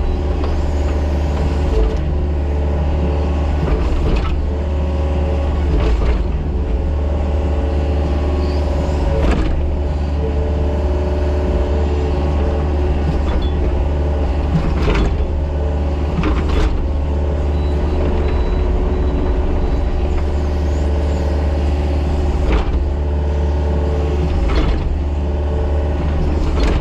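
Excavator's diesel engine running steadily under working load, with a low hum, and scattered sharp clunks as the machine works.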